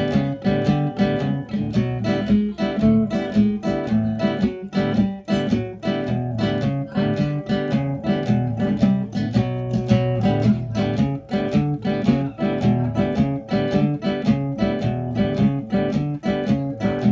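Custom cypress nylon-string classical cutaway guitar played by hand, chords and notes in a quick, even rhythm.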